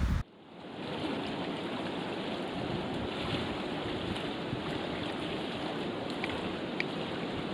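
Small waves washing onto a beach: a steady hiss of surf that comes in abruptly just after the start and settles within a second.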